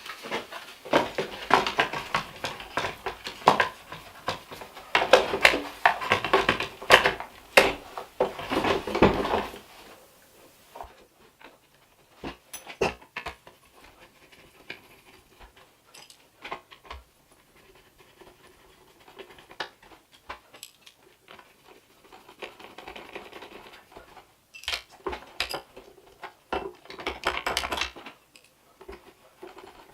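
Handling noise of the leaf blower being reassembled: plastic housing parts and tools clicking, knocking and scraping as the cover is fitted back on. Busiest for the first ten seconds, then only scattered clicks, then busier again near the end.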